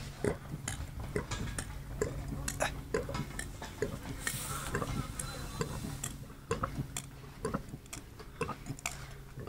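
A dog chewing and tearing at lawn grass, its teeth making irregular crisp crunching clicks several times a second, over a low steady hum.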